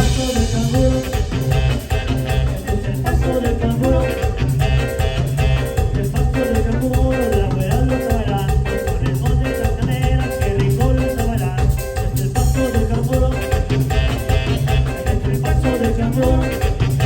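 Live Latin band music through a PA system: a steady bass beat with moving melody lines and regular percussion strokes throughout.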